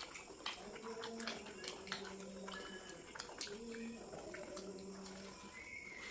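Two people eating chicken rolls: chewing with many quick, irregular wet mouth clicks and smacks.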